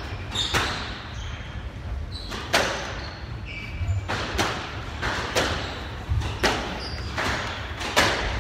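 Squash rally: the ball cracking off rackets and the court walls in sharp hits, unevenly spaced from half a second to two seconds apart, with brief shoe squeaks on the wooden court floor.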